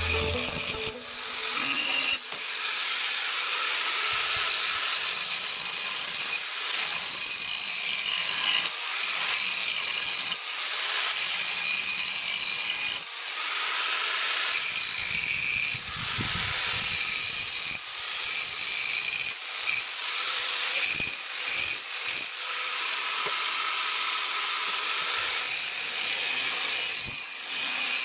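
Angle grinder grinding the steel of a chainsaw guide bar: a steady high-pitched whine and hiss of the disc on metal, easing off briefly every few seconds as the grinder is moved along the bar.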